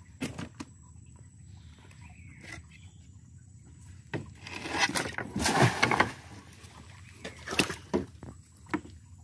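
Live tilapia flopping and splashing in the shallow bilge water of a wooden canoe, with sharp knocks against the boat's planks. The splashing is loudest around the middle.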